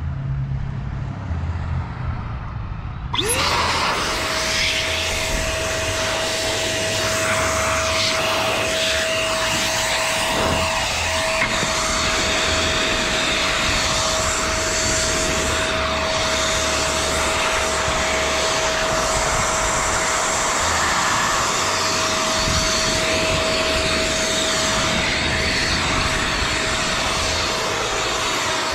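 Portable blower switching on about three seconds in, its motor whine rising quickly and then holding one steady pitch under a loud, even rush of air that runs on without a break. Before it starts there is a low rumble of wind on the microphone.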